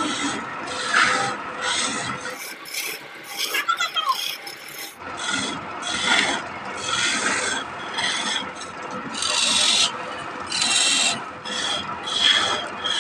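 A steel turning chisel scraping and cutting into a wooden cylinder spinning on a lathe. The rasping strokes come one after another, each lasting a second or less, as grooves are cut into the wood.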